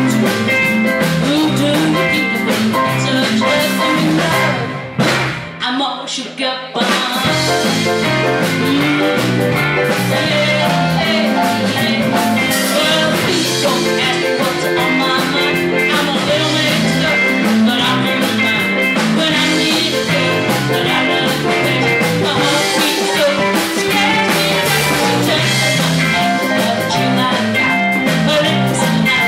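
Live band playing a blues-rock number with singing, with a brief dip about five seconds in where the bass drops away before the full band comes back.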